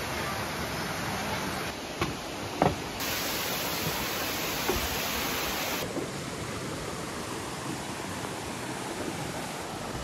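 Steady rush of flowing water from small waterfalls and a rocky stream, changing abruptly in tone a couple of times. Two short knocks about two seconds in.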